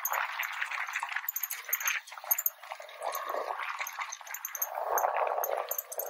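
Strong wind buffeting the microphone, an uneven rushing noise that rises and falls in gusts, with a brief lull about two to three seconds in.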